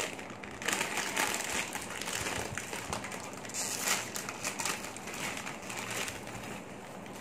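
A crinkly foil snack bag of corn puffs being handled, opened and tipped out into a bowl: dense, irregular crackling and rustling.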